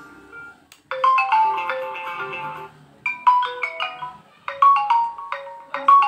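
Built-in ringtones on a Vivo Y20T previewing through the phone's speaker. One tone fades out at the start, and about a second in a new melody of quick chiming notes begins, coming in short phrases with brief gaps.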